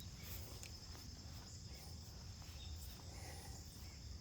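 Crickets trilling in a steady high drone, over a faint low rumble of outdoor background noise.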